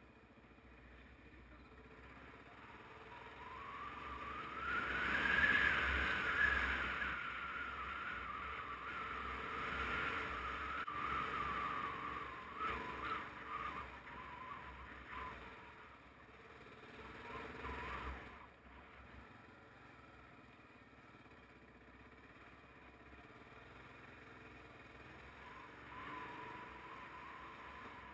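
Motorcycle engine under way, its whine rising in pitch about four seconds in, then easing back down and fading to a quieter steady running in the second half.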